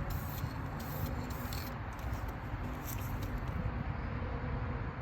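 Aerosol can of self-etching primer spraying in short hisses during the first few seconds, over a steady low rumble.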